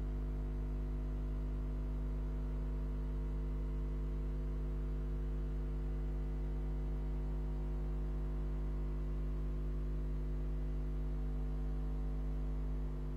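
Steady electrical mains hum and buzz: one low drone with a stack of even overtones, unchanging throughout, dipping slightly right at the end.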